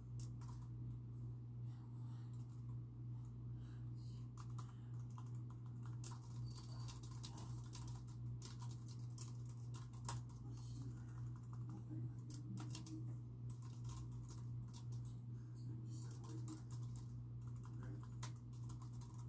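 Typing on a computer keyboard: a quick, irregular run of keystrokes that goes on throughout, over a steady low hum.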